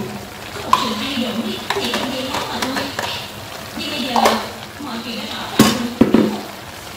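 Grass carp and banana flower sizzling in a metal wok, with several sharp clinks of a spoon against the pan, the loudest two close together near the end.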